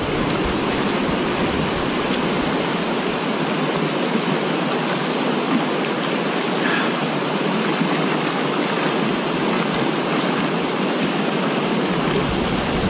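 Water pouring over a concrete dam spillway into the pool below: a steady rushing noise.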